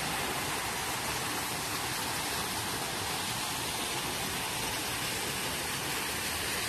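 A steady, even rushing hiss with no separate sounds standing out in it.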